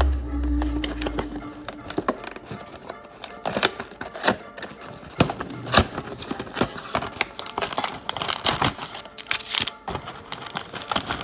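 Background music with irregular crinkling, rustling and clicks as a sealed Prizm Mega box of trading cards is unwrapped and opened.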